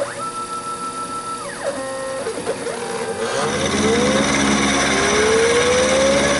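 Taig CNC micro mill profile-cutting gray cast iron with a 3/16-inch carbide end mill. The drive motors whine in several steady tones that slide up and down in pitch as the axes speed up, slow down and change direction, over the spindle and cutting noise. The whole sound grows louder a little over three seconds in.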